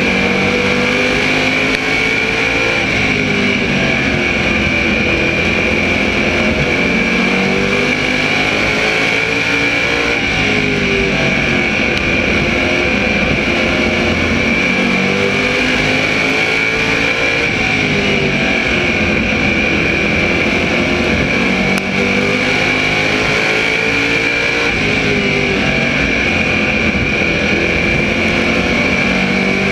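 On-board sound of an SK Modified's small-block V8 at racing speed, its pitch climbing down each straight and falling off into the corners about every eight seconds, with a steady high-pitched whine throughout.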